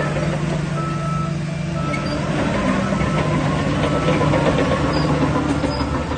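Heavy diesel engine of a working crawler bulldozer running steadily, a little louder after about two and a half seconds, with some rattling and faint short beeps about once a second.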